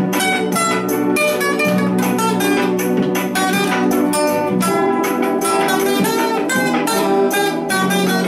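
Acoustic guitar played as an instrumental solo: a run of quick picked melody notes over lower ringing notes.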